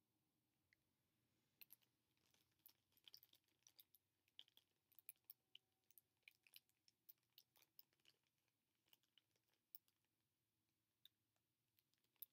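Faint, irregular small clicks and crinkles of small items being handled by hand, starting about a second and a half in and thinning out in the second half.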